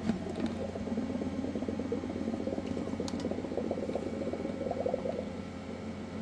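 Air from the Anycubic auto-feeder's pump bubbling up through the central pipe into the resin bottle, a rapid, irregular gurgle that thins out after about five seconds over a steady low hum. The bubbling shows that the central pipe is not clogged.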